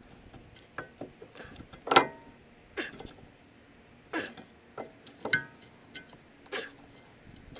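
Sharp metallic clinks and knocks from a threaded brake-caliper piston tool being handled against a rear brake caliper: about seven irregular hits, some ringing briefly, the loudest about two seconds in.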